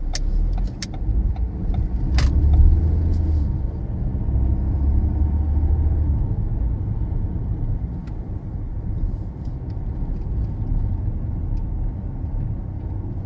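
Ford Fiesta SE hatchback driving, its four-cylinder engine and the road making a steady low rumble. The rumble swells and the engine note rises from about two seconds in, as the car picks up speed. There is a single sharp click about two seconds in.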